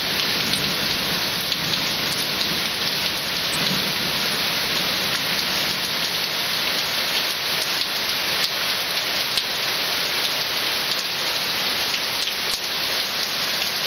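Heavy rain falling steadily, a dense, even hiss. A last low rumble of thunder dies away in the first few seconds.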